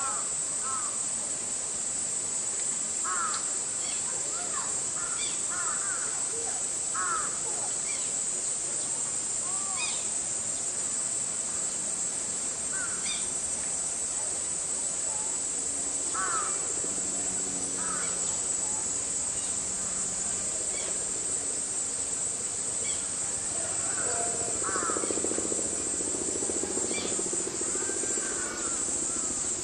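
Steady high-pitched drone of cicadas, with birds calling now and then and people's voices in the background during the second half.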